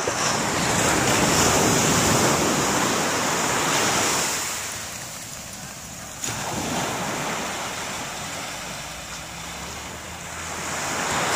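Ocean surf breaking on the shore, a rushing wash that swells and fades and then builds again near the end. A single brief knock sounds about six seconds in.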